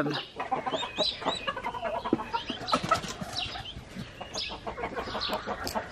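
Newly hatched turkey poults peeping in many short, high chirps, with low clucks from the turkey hen standing over them.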